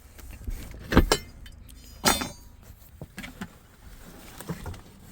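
A few sharp knocks and clunks, the loudest about one and two seconds in, with lighter taps between, as objects are handled and set down in a truck's sleeper cab.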